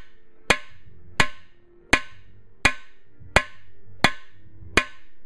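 Mash hammer striking the steel mandrel of a cam bearing installer seven times, about one blow every 0.7 s, each a sharp metallic clang with a brief ring. The blows are driving the number 5 cam bearing into a Ford 351 Windsor block until it sits flush.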